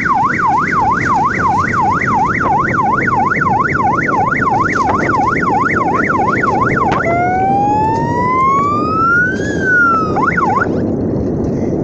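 Add-on electronic police-style siren on an electric bicycle, one of three siren modes. It plays a fast warble going up and down several times a second, then switches about seven seconds in to a slow wail that rises, peaks and falls. A brief warble follows and it cuts off near the end.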